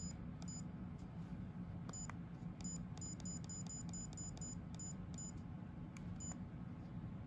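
Digital camera's high-pitched key beeps, one short beep per button press while the date and time are being set. A few single beeps come first, then a quick run of about nine at four to five a second in the middle, then a few more spaced beeps.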